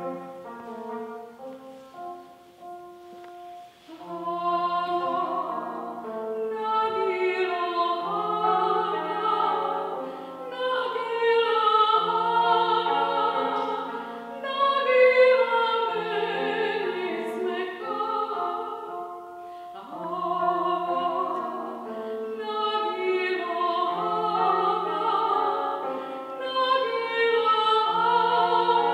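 A cimbalom plays held notes alone for about four seconds. Then a woman's classical singing voice comes in with vibrato over the cimbalom accompaniment.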